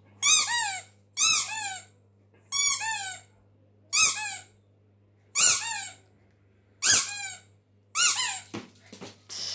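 Rubber squeaky dog toy squeezed seven times, about one squeak every second and a half, each squeak dropping in pitch as it ends.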